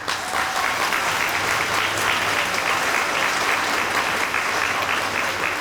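Audience applauding, many people clapping together in a large room.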